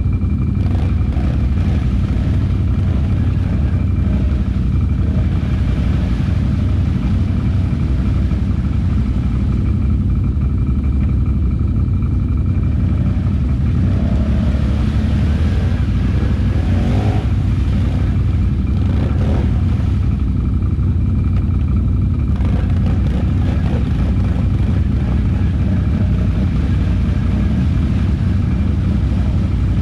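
Can-Am Outlander ATV engine running steadily.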